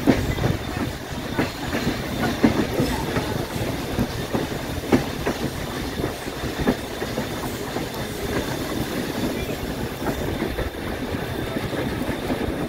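Passenger train running, heard from an open-air car right behind its steam locomotive: a steady rumble with irregular clicks of the wheels over the track.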